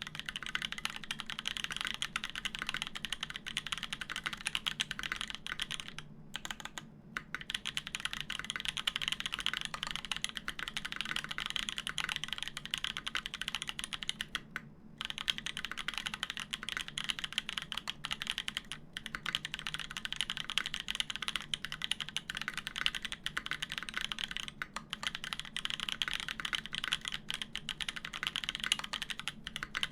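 Continuous fast typing on a mechanical keyboard with lubed Gazzew Boba U4T tactile switches in a Serratus case with a polycarbonate plate and GMK keycaps: a dense stream of keystroke clacks, with brief pauses about six seconds in and again about fifteen seconds in.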